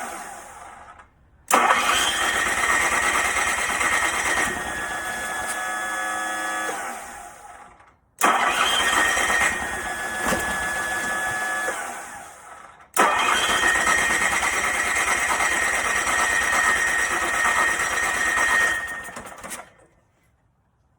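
Onan 2.8 kW RV generator engine cranked on its electric starter three times, each crank starting abruptly, running about five to six seconds, then winding down, with the engine trying to fire but never catching and running: a crank-no-start, though the owner has confirmed fuel, spark and 110 psi compression.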